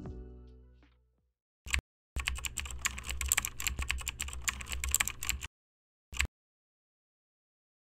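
Background music fades out in the first second. Then comes a single keystroke, a rapid run of computer-keyboard typing clicks lasting about three seconds, and one last keystroke near the end. It is a typing sound effect for an on-screen title being typed out.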